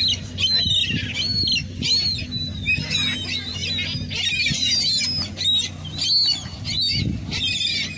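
A flock of gulls calling over one another, many short arched squawks and cries overlapping without a break, with a steady low hum underneath.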